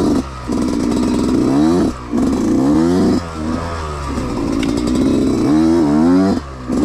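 Yamaha YZ125X two-stroke dirt bike engine revving in short bursts. The pitch climbs, then drops away as the throttle is chopped every second or two, the on-off throttle of riding through a tight, twisty trail.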